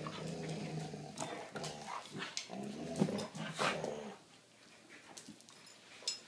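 Dogs growling in play as they tug on a blanket, with sharp rustles and scuffs of the fabric among the growls. The growling stops a little after four seconds in.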